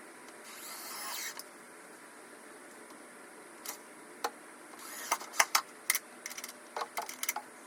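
Painter's tape pulled and torn off the roll in a short rasp, then a run of sharp clicks and taps as the latch and screws are handled.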